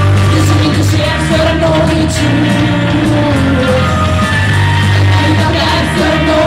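Rock band playing a song: a sung melody over steady bass, with cymbal-like hits.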